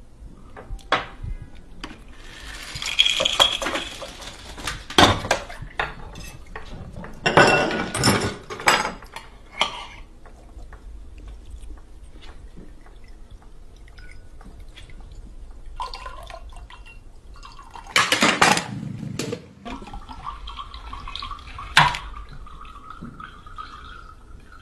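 Homemade chain-reaction (Rube Goldberg) machine running: a string of sharp clicks, knocks and clatters of small parts, with several noisy stretches of liquid pouring and splashing into a glass. A faint steady tone sounds in the last few seconds.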